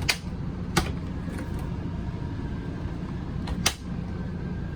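Sharp clicks and a knock from the motorhome's refrigerator door latch as the door is opened and closed, three in all with the loudest near the end. A steady low hum runs underneath.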